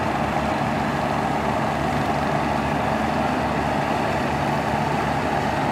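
Ship's diesel engines idling at the harbour: a steady, unchanging hum.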